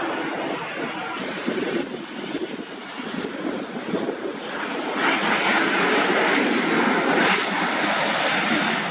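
Airliner's engines heard as it passes, a steady rushing noise with a faint high whine falling in pitch, growing louder about five seconds in.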